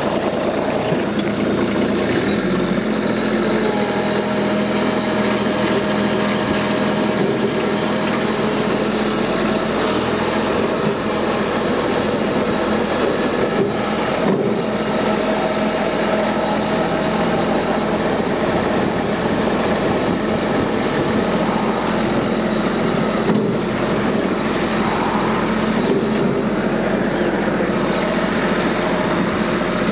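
Kubota compact tractor's diesel engine running steadily under way, heard from the driver's seat.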